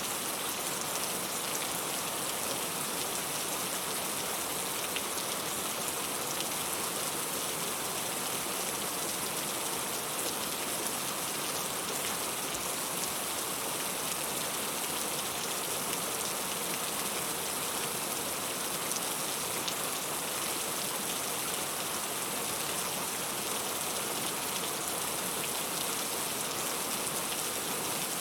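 Steady rain falling, a dense even hiss of drops with fine scattered patter on a surface.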